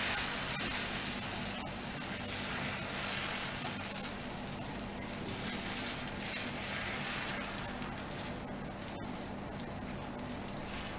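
Cucumber thalipeeth batter sizzling on a hot tawa as it is patted and spread flat with wet fingers: a steady hiss that swells and eases a little as the hand moves.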